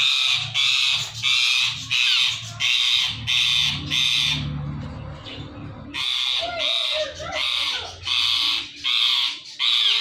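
Rose-ringed parakeet giving a run of loud, harsh screeches, about two a second. The calls pause for a second or so midway, then resume.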